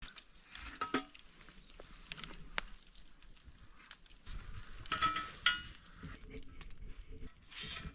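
Faint campfire crackling with scattered small clicks, and a few metallic clinks from a frying pan being handled, about a second in and twice near five seconds.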